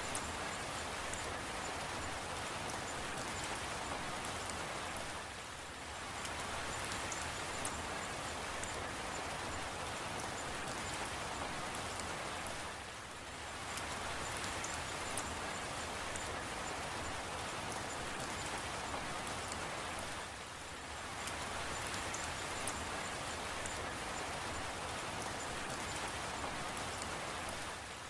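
Steady rain falling, a dense hiss with scattered fine drop ticks, dipping briefly in loudness about every seven and a half seconds.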